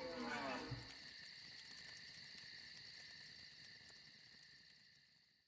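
Outro music ends with falling notes and a low thump about a second in, leaving a steady high, insect-like chirring drone that fades out.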